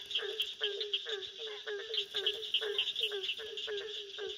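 Chorus of calling frogs: cricket frogs clicking rapidly and high, over short low calls that drop in pitch and repeat several times a second.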